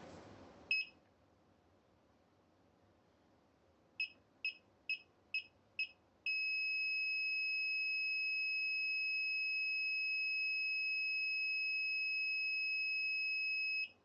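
Electronic buzzer of a Gotway MTen3 electric unicycle beeping during its level calibration. One short beep, then five short beeps about two a second, then one long unbroken high tone of about seven and a half seconds.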